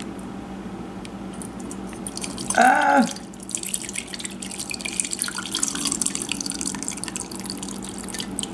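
Melted goat tallow pouring in a stream from a crock pot insert through a mesh strainer in a stainless steel funnel into a jar. The trickling starts about three and a half seconds in. Just before it comes a brief pitched sound that rises and falls, the loudest moment.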